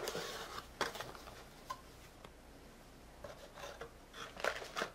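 A small blade slitting the seal on a cardboard box, then the lid being opened. A short scraping rasp at the start, a few light clicks, then soft rustling of cardboard and paper near the end.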